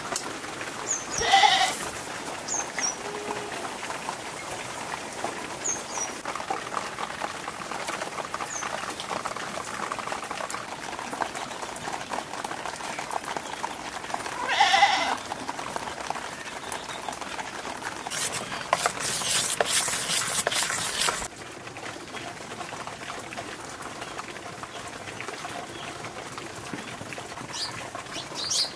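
A goat bleating twice, once about a second in and again midway, over a steady hiss of rain, with a few faint bird chirps. The hiss swells for a few seconds past the middle, then drops.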